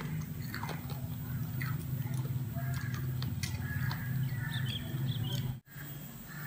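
A steady low hum with scattered light clicks and a few faint high chirps; the sound cuts out for a moment near the end.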